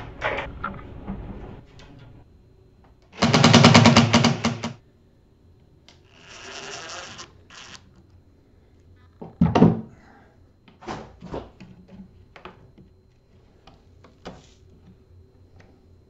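Cordless drill-driver backing out hinge screws on a wooden hatch. There is a loud run of about a second and a half about three seconds in, and a shorter, fainter run a few seconds later. A sharp knock comes near ten seconds, then scattered clicks and taps of screws and hardware being handled.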